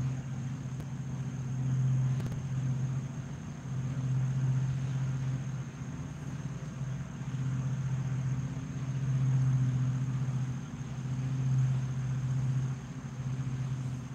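Low, steady machine hum with a weaker tone an octave above it, swelling and fading every few seconds, with a faint steady high whine above it.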